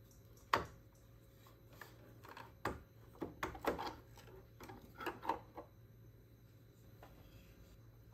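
Hard plastic clicks and knocks as a flat-blade screwdriver pries the drive pulley off its shaft on a Zodiac TX35 robotic pool cleaner's plastic chassis. There is a sharp click about half a second in, another near three seconds, then a quick run of clicks and scrapes, and a few more about five seconds in.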